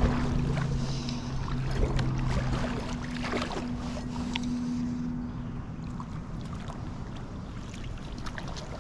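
Creek water running and splashing around a wading angler, with scattered light knocks. A low steady hum stops about halfway through.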